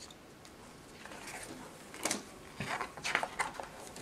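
Pages of a spiral-bound paper calendar being flipped over by hand: a run of quick paper rustles and flaps, the loudest about two seconds in and again a second later.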